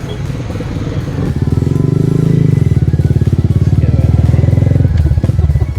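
A motorcycle engine running close by, loud for about three and a half seconds from a little over a second in, then falling away.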